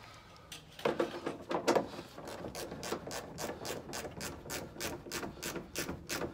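Hand ratchet clicking at about four clicks a second, starting a fastener on a plastic fender flare without tightening it. A few louder knocks come about a second in.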